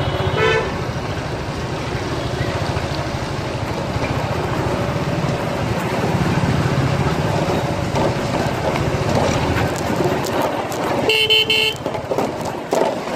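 Road traffic heard from a motorcycle riding slowly through it: a steady rumble of engines, a short horn toot near the start, and a louder horn blast lasting about half a second, about eleven seconds in.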